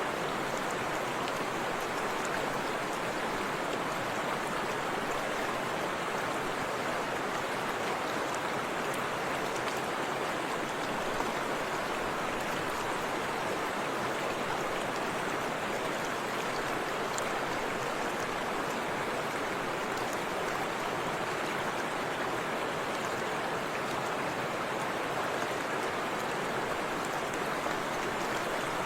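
Forest river rushing and splashing over rocks and a small waterfall, a steady, even rush of water.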